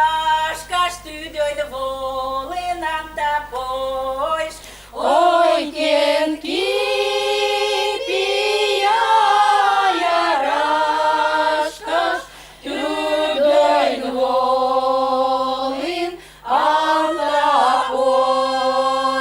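A choir of women's voices singing a folk song unaccompanied, in long held phrases with short breaks for breath; the singing grows fuller about five seconds in.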